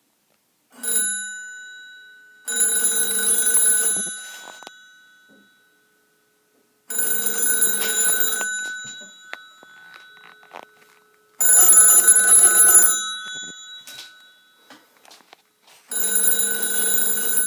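Electric ringer bells of a 1962 CTNE Standard Electric coin payphone ringing on an incoming call. After a brief single ding about a second in come four rings of about a second and a half each, spaced a few seconds apart, with the bells dying away after each ring.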